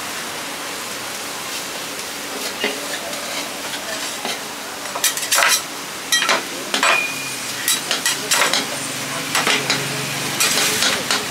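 Chopped meat and chicken sizzling as it fries in a pan. From about five seconds in it is stirred, with frequent sharp clicks and scrapes of a utensil against the pan.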